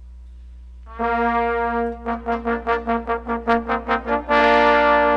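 Brass fanfare: about a second in, a held note, then a run of quick repeated notes, then a long held chord, over a steady low hum.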